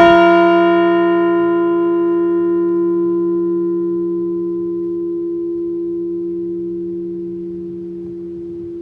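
Liberty Bell replica struck once as a single toll: a clang right at the start, then a long ring. The higher overtones die away over the first few seconds while a low hum fades only slowly.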